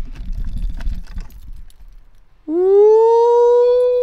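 A person's long, high-pitched 'ooooh' starting about halfway through, sliding up at first and then held steady. Before it, only a low rumble.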